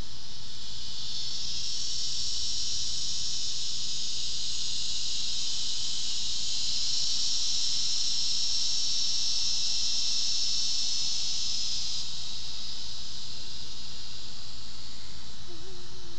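Summer insect chorus: a loud, high, steady hissing drone that swells over the first couple of seconds and eases off again after about twelve seconds.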